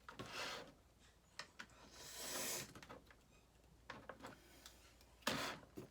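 Scissors clicking as they try to cut a tightly knotted tie on toy packaging, with plastic packaging rustling in short bursts and a few sharp clicks.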